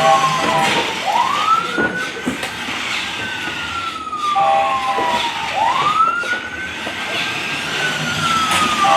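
Toy fire truck's electronic siren wailing: each cycle is a short honk, then a quick rise and a slow fall in pitch, repeating about every four and a half seconds.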